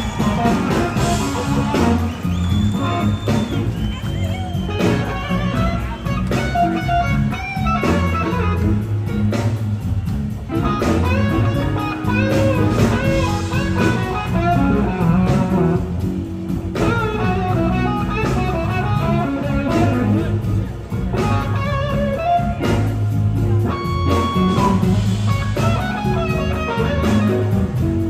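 Live blues-rock band playing an instrumental passage: two electric guitars lead over the drums, with no singing.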